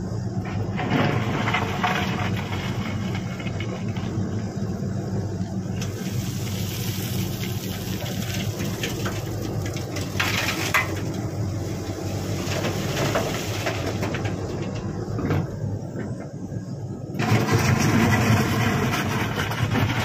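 Shantui SE135 hydraulic excavator's diesel engine running under load as it digs and swings. About halfway through, earth and stones spill from the bucket into a steel dump-truck bed. The machine works louder again near the end as the boom goes back down to dig.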